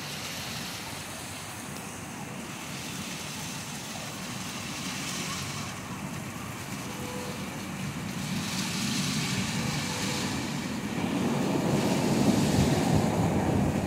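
Heavy rain falling, a steady hiss, with wind gusts buffeting the microphone that grow louder in the last few seconds.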